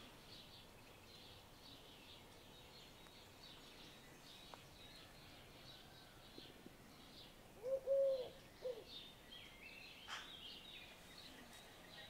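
A Eurasian collared dove gives one three-note coo about eight seconds in, the middle note longest. Faint high chirping of small birds runs underneath, and a brief higher bird call comes near the end.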